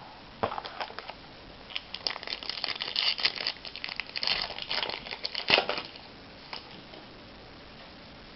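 Plastic wrapping of a trading card pack crinkling and tearing as it is opened by hand. It is a run of crackles that is loudest about five and a half seconds in and dies away about six seconds in.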